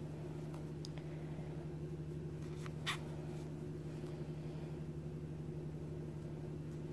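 Quiet room tone: a steady low hum, with two faint clicks about one and three seconds in.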